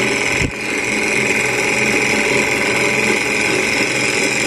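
Sunnytech hot air Stirling engine model running at speed: a steady, fast mechanical whir and clatter from its piston, linkage and spinning flywheel and fan.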